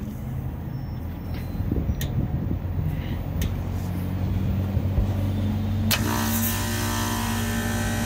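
Packaged rooftop HVAC unit running with a steady low hum, with a few faint clicks. About six seconds in, the dehumidification three-way reheat valve clicks over, and a steady hiss follows.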